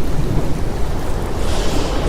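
Ocean surf: a steady low rumble of waves, with the hiss of a breaking wave swelling about a second and a half in.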